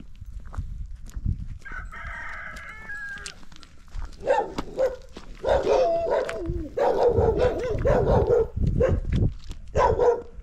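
Footsteps crunching on stony ground, then from about four seconds in loud, repeated, wavering animal calls of farmyard animals, with a shorter higher call about two seconds in.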